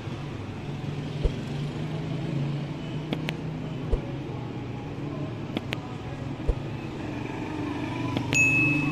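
Street traffic: car engines running and passing in a steady low hum, with scattered sharp ticks and low thumps, and a short high-pitched tone near the end.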